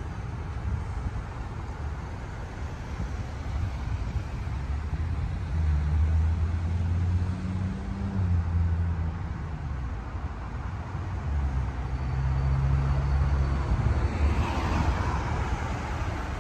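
Road vehicle engines: a low pitched hum that swells twice, about six and twelve seconds in, shifting slightly in pitch, with a rising hiss of passing traffic near the end.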